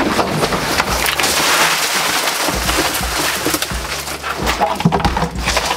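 Spanish mackerel being tipped out of a plastic bucket into a boat's fish box. The fish slither out with a rush for a couple of seconds, then come several knocks and thuds of fish and bucket against the box.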